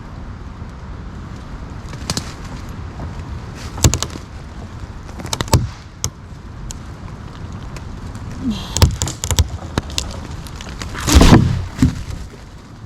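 Axe chopping wood: about half a dozen sharp strikes at irregular intervals. They include a quick run of three about nine seconds in and the loudest, longest crack near the end.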